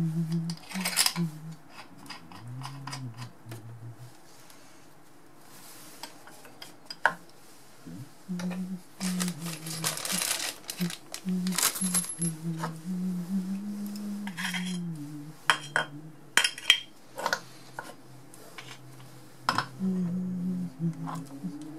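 Metal gas fittings being handled: brass and steel compression nuts and olives clink and scrape against one another and on copper pipe as they are fitted to a bubble tester, in scattered sharp clicks with a longer scraping stretch about halfway through.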